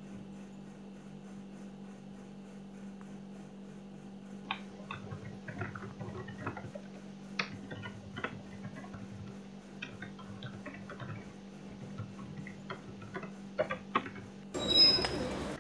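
Typing on a computer keyboard: irregular key clicks that begin about four seconds in, over a steady low hum. Near the end a short, loud burst of noise with high tones in it lasts about a second, then cuts off.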